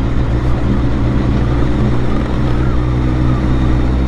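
BMW motorcycle engine running at a steady pace while under way.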